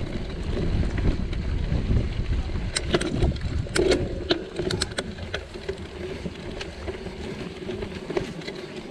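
Mountain bike riding over a sandy dirt and forest trail, with wind buffeting the bike-mounted camera's microphone as a low rumble that eases in the second half. A run of sharp clicks and rattles from the bike comes about three to five seconds in.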